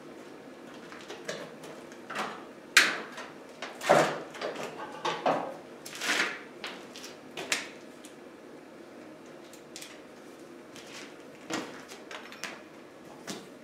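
Hand tools and a strip of copper ground wire being handled: irregular clicks, taps and knocks, the sharpest about three and four seconds in, with a few more near the end.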